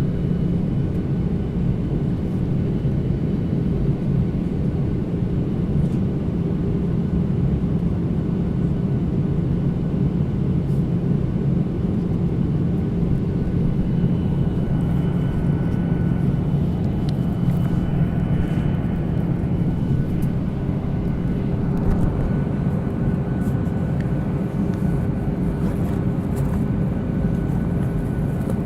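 Steady cabin noise inside a passenger airliner: a constant rumble of the jet engines and rushing air with a low hum, as the plane descends for landing.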